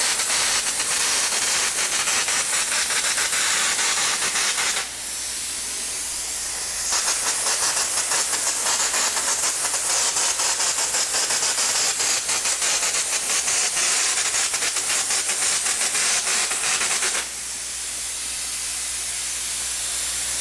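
Air-fed drywall texture hopper gun spraying thin mud for a fine-to-medium orange-peel texture: a loud hiss with a fast, fine spatter. It falls to a softer hiss about five seconds in, comes back full around seven seconds, and falls back again near seventeen seconds.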